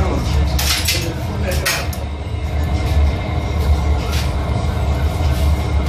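Glassblowing furnace running with a steady low rumble, with a few short hissing noises about a second in.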